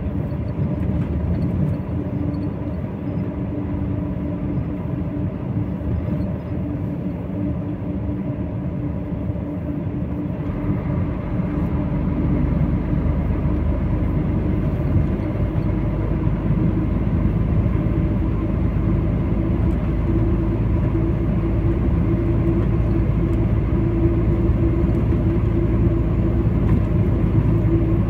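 Truck's engine and tyre noise heard from inside the cab while driving down the highway, a steady low drone that grows louder and deeper about ten seconds in.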